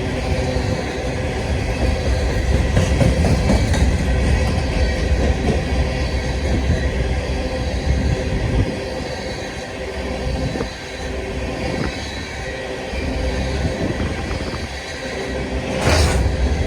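A long freight train of empty hopper cars rolling past with a steady rumble and clatter of wheels on rail, with a brief louder burst near the end.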